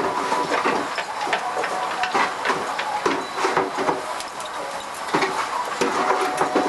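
Irregular mechanical clattering and knocking over a steady noisy background, with a few faint steady tones.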